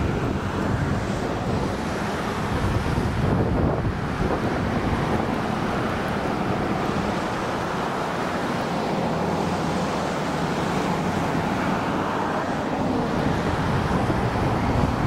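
Steady rushing noise of wind buffeting the microphone over the flow of the flooded river, with no distinct splashes or snaps standing out.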